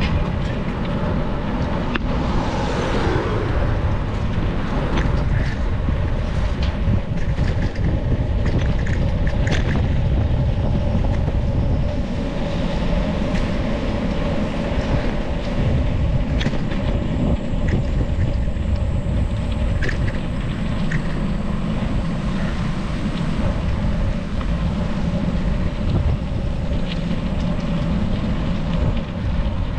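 Wind buffeting an action camera's microphone while cycling, with steady tyre and road noise and scattered small clicks and rattles from the bike.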